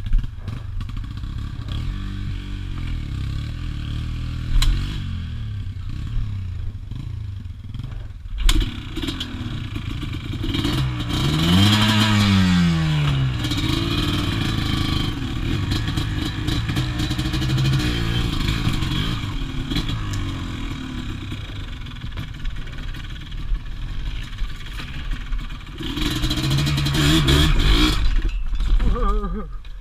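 Quad (ATV) engine running under throttle while riding off road. The pitch rises and falls once about twelve seconds in, and it runs louder near the end, with clattering from the rough ground.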